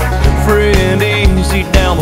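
Country song playing, with a steady drum beat under a pitched melody line.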